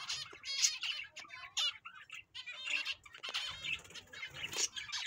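A colony of zebra finches chirping, many short calls overlapping without a break.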